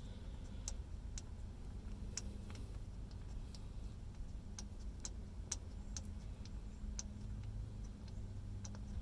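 Faint, irregular small metallic ticks as a spark plug is unscrewed by hand from the cylinder head of a 5.7 L MerCruiser marine V8.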